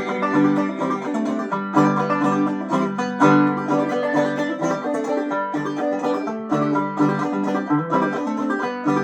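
Solo clawhammer banjo in open G tuning, picked in a steady rhythmic pattern through an instrumental break between sung verses.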